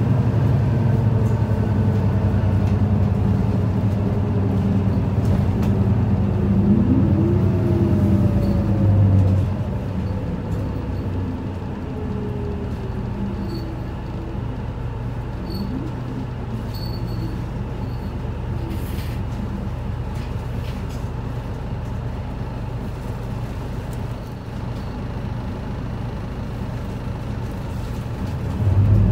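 Isuzu Erga city bus's four-cylinder diesel and drivetrain heard from inside the cabin while under way. For the first nine seconds it pulls with a steady low drone and whines that rise and fall. It then eases off to a quieter steady running sound. Near the end it picks up again with a rising whine as the bus accelerates.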